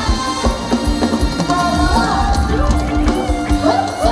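Thai ramwong folk dance music played live by a band, with a steady, driving beat under a melody.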